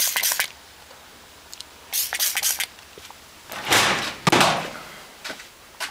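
Hand trigger spray bottle squirting degreaser in quick repeated pumps that stop about half a second in, then another short burst of spraying about two seconds in. Two louder rough handling noises follow around four seconds in, with a few faint clicks near the end.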